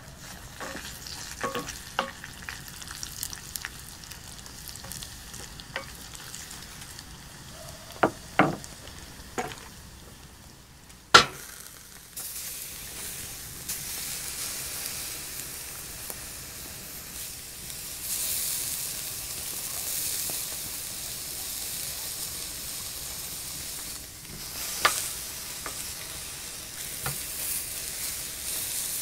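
Diced pancetta frying in a cast-iron pan, a wooden spatula stirring and scraping against the pan, with a few sharp knocks. About twelve seconds in, this gives way to a louder, steady high sizzle of steak searing on a charcoal grill grate.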